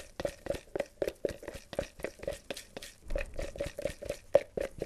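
A mixing stick stirring epoxy thickened with colloidal silica in a clear plastic mixing pot. It makes quick, repeated scraping taps against the pot's sides, about four or five a second.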